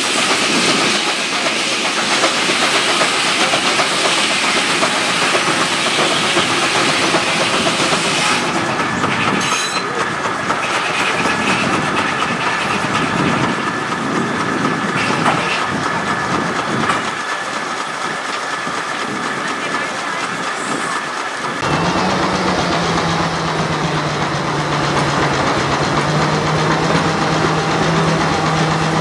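Rumely steam traction engine running, a steady hiss of steam with rhythmic clatter. About three-quarters through, the sound changes abruptly to a steady low drone from a steam traction engine running a flat belt to a sawmill.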